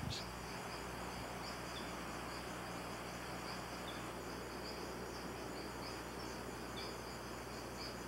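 Rainforest insect chorus: a steady high-pitched chirring with a few faint short chirps over it and a low electrical hum underneath.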